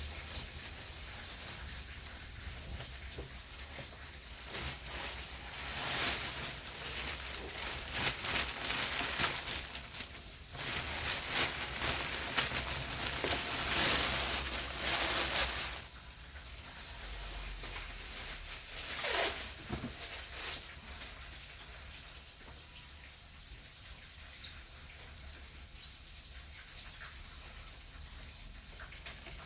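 Rustling and handling of packaging while an air fryer is unboxed, in uneven hissy stretches that are loudest in the middle.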